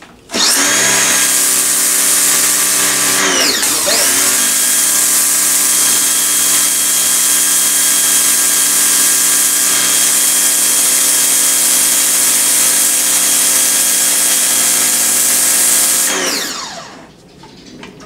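Ryobi 2000 W electric pressure washer running, its motor and pump giving a steady hum under the hiss of the high-pressure jet from the narrow pinpoint nozzle. About three seconds in the motor briefly winds down and starts again, and near the end it winds down and stops.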